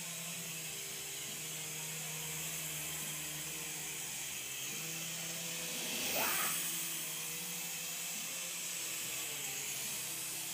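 Toy RC helicopter's small electric motors and rotors whirring steadily, with a brief louder swell about six seconds in.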